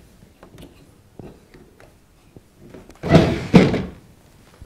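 Clips on a tumble dryer's condenser unit clicking faintly, then, about three seconds in, the condenser scraping and knocking twice in quick succession as it is pulled out of its housing.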